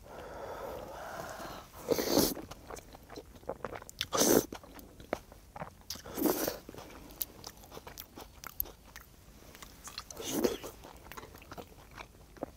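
Close-miked eating of tteokbokki with ramyeon noodles and fish cake: wet chewing with small mouth clicks and smacks, and four louder short bursts of biting and slurping spread through.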